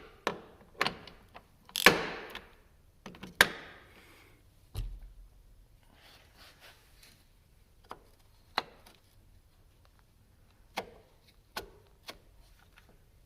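Scattered clicks and knocks of hand tools and metal parts as a car door latch is worked loose and moved down. The loudest knocks come about two and three and a half seconds in, a dull thud follows near five seconds, then only occasional clicks.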